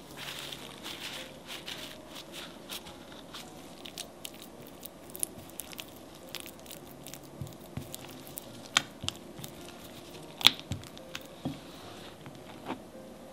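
Soft squishing and crinkling handling noises with many scattered sharp clicks and a few soft thumps; the loudest click comes about ten and a half seconds in.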